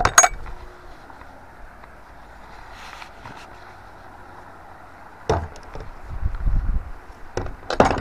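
Wooden field gate being worked: sharp clicks and knocks of wood and metal fittings right at the start, one more about five seconds in, and a cluster of knocks near the end, with a low rumble just before them.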